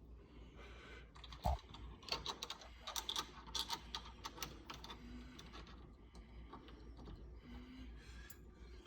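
Small metal clicks and rattles of door-knob hardware being handled and fitted together, with one sharper knock about a second and a half in and the busiest clicking between about two and four and a half seconds in.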